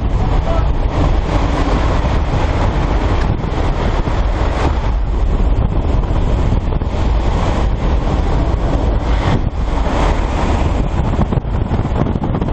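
Loud, steady rush of skydiving freefall wind buffeting the microphone.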